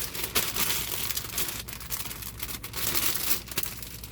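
Plastic LEGO parts bags crinkling and rustling as they are handled and taken out of the box.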